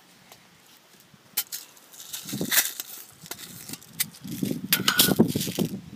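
Metal pellet tin being handled and opened to get at lead air-rifle pellets: scattered sharp clicks and taps, then a louder stretch of rattling and rustling about four seconds in.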